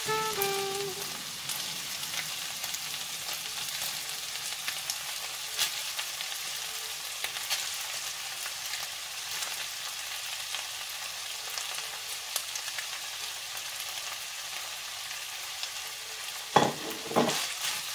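Minced beef and carrot sizzling steadily in a frying pan as sliced cabbage is added, with scattered light clicks and a few sharper knocks near the end.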